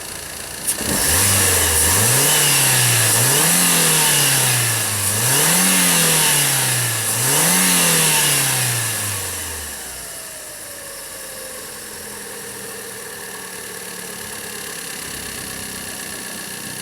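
Fiat Uno Vivace's 1.0 8-valve four-cylinder engine revved up and down about three times from idle, after a short click, then dropping back to a steady idle. It runs quiet, without the rattle of the slack timing belt that has now been replaced.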